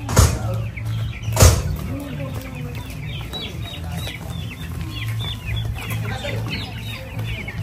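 A flock of chickens calling and clucking, many short, high, falling calls overlapping throughout, with two loud knocks about a second apart near the start.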